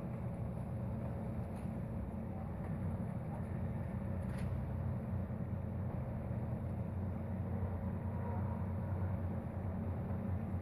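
Passenger train running at speed, heard from inside the carriage: a steady low rumble, with one faint click about four seconds in.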